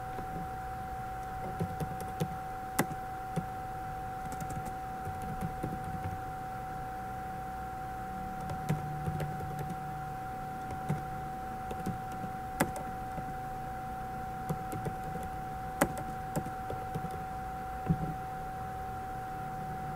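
Computer keyboard keystrokes, a few at a time at an irregular pace, over a steady high-pitched electrical hum.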